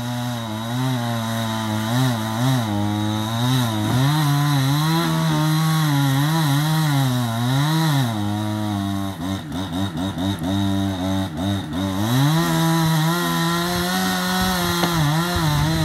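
Chainsaw engine running under load, cutting into a tree trunk to fell it. Its pitch wavers up and down as the bar bites. For a few seconds past the middle the engine speed sags lower and unsteady, then picks back up.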